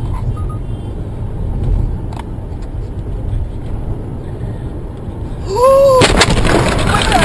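Low, steady vehicle rumble, then near the end a brief rising-and-falling tone followed by a sudden loud crash: a collision, with crunching and screeching metal continuing.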